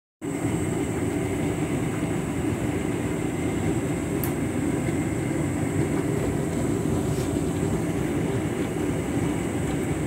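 Candy front-loading washing machine tumbling a large load through sudsy water during its rinse: a steady rumble of the turning drum and motor with water washing around.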